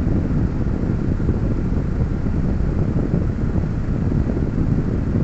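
A car engine idling while the car stands still, heard from inside the cabin as a steady low rumble.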